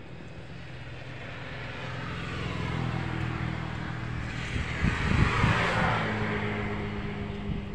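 A motor vehicle passes on the road, its noise swelling to a peak about five seconds in and then fading, over a steady low engine hum.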